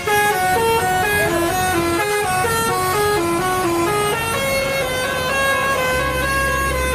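Bus telolet horn playing a melody: several horn tones sounding together and stepping quickly from note to note, then holding longer notes. It starts suddenly.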